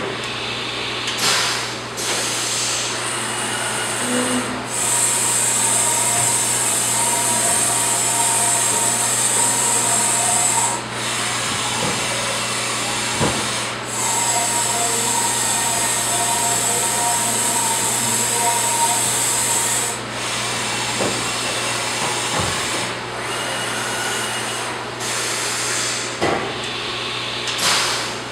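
Haas VF-6/40 CNC vertical machining center running, with a steady hiss and low hum. Twice, for about six seconds each, a louder hiss and a pitched servo whine come in as the table travels along its axis. A few sharp clicks are scattered through it.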